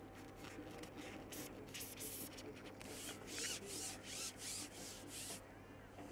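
Faint rubbing: a series of short scratchy strokes that come closer together and louder, about two a second, from about three seconds in, and stop about five and a half seconds in.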